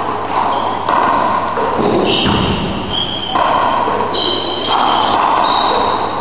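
A handball rally: the hard rubber ball slapped by hand and smacking off the walls and wooden floor of an enclosed court, a sharp hit roughly every half-second to second, each ringing with echo.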